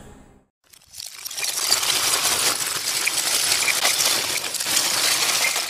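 Intro music fades out at the very start. After a brief gap, a logo-animation sound effect swells in within about a second: a dense, hissing rattle of countless tiny clicks, like a shower of small beads or coins pouring.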